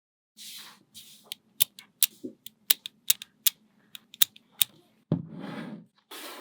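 Small magnetic balls clicking sharply as they snap onto one another, about a dozen irregular clicks, with stretches of softer rattling as the balls are shuffled and rolled together.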